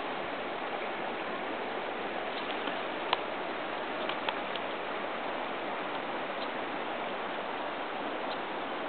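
Steady rush of the Catawba River running over rocky shoals, with a few sharp clicks, the loudest about three seconds in.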